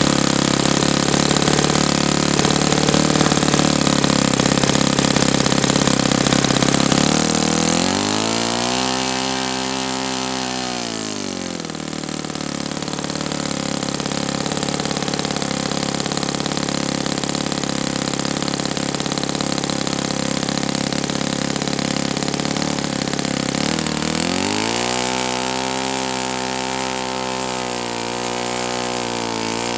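Saito FA-72a single-cylinder four-stroke glow engine running on a test stand just after starting. Its revs rise about eight seconds in and fall back a few seconds later, then rise again near the end and hold.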